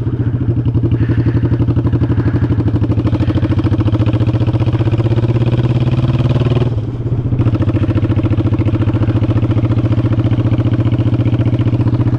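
Honda Shadow Sabre 1100 V-twin motorcycle engine running under way, its pitch slowly climbing. About seven seconds in it dips briefly, as in a gear change, then runs on steadily.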